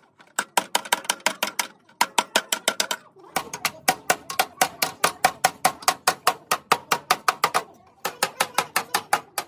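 Rapid hammer blows on metal, about seven or eight a second, each with a short ringing tone, in runs broken by brief pauses.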